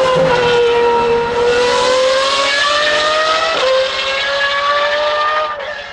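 Pagani Huayra R's naturally aspirated V12 at high revs through an unrestricted exhaust as the car passes and pulls away: the pitch sags a little, climbs, drops at an upshift a little past halfway, climbs again, then falls away and fades near the end.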